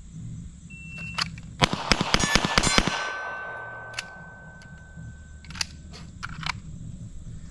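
Shot-timer beep, then a fast string of pistol shots over about a second and a half at steel targets, with a steel plate ringing on for a couple of seconds after the last hit. A few more single shots follow, spaced apart.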